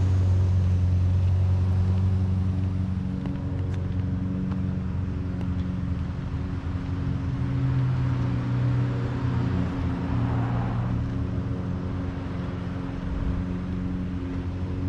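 A small engine running steadily, a low droning hum whose pitch shifts slightly partway through.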